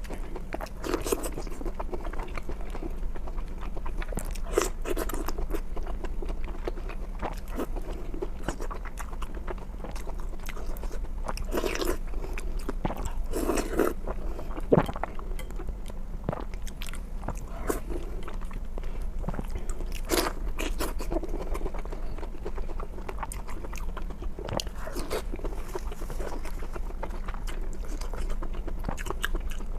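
Close-miked eating: irregular chewing, biting and crunching of food in the mouth.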